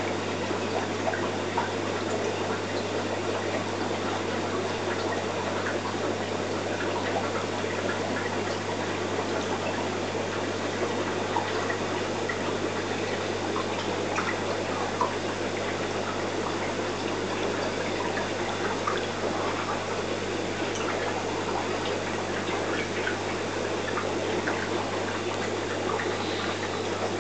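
Aquarium water circulating: a steady watery wash with scattered small drips and ticks, over a constant low hum.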